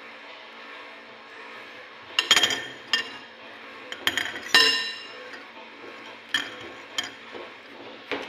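Utensils clinking against glass and dishware: about eight sharp, ringing clinks, clustered between about two and five seconds in, with two more later and one near the end, over a steady background hum.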